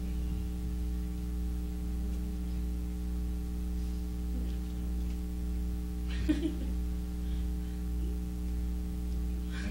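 Steady electrical mains hum with its even overtones, with one short voice sound about six seconds in.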